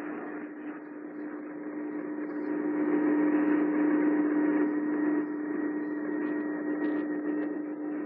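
AM radio tuned to 1560 AM giving out a steady low hum-like tone over static, a little louder in the middle.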